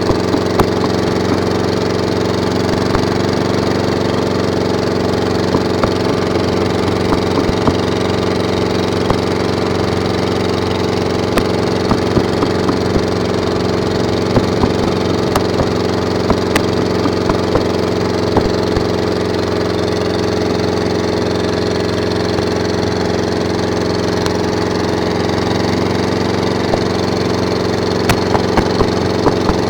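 A motor running steadily at an even pitch, with many small clicks and crackles scattered over it.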